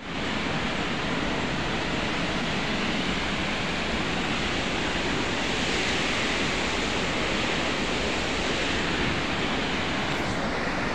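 Steady rush of Athirappilly Falls, a large waterfall on the Chalakudy River.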